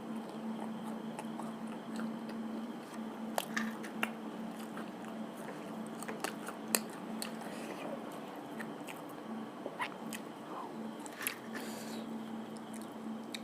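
A person chewing and biting food close to the microphone, with scattered short crisp crunches and mouth clicks over a steady low hum.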